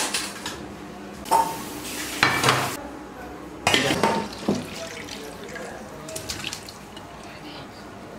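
Stainless-steel pot and bowls clattering as the pot is handled, then thick fish curry sloshing and splashing as it is poured from the pot into a steel bowl. The loudest clatters and splashes come in the first half, then it goes quieter with a few small clinks.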